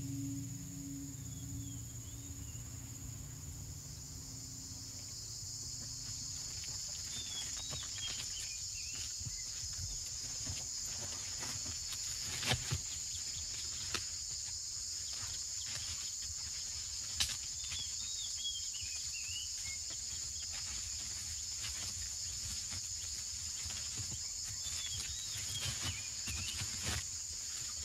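Tropical rainforest insect chorus, a steady high buzzing that swells in about four seconds in, with short high chirping calls now and then and a few sharp clicks near the middle.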